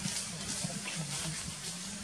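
Outdoor background noise: a steady high hiss with faint, low, wavering voices underneath.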